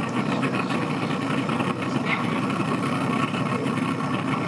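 Bass boat's outboard motor idling, a steady low drone.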